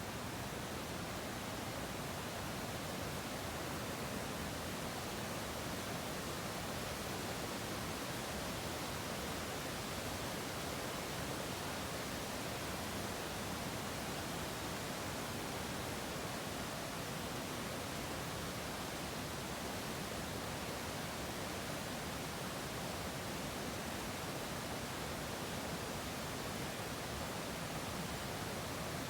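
Waterfall roaring steadily: an even, unbroken rush of falling water.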